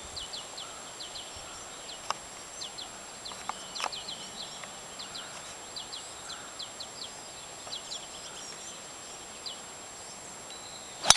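Birds chirping in a long series of short calls, with a few faint clicks; near the end, the single sharp crack of a driver striking a golf ball off the tee.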